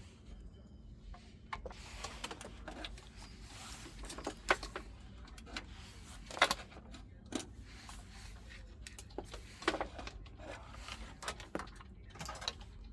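Irregular clicks, knocks and short scrapes of objects being handled, the loudest about four and a half and six and a half seconds in, over a faint steady low hum.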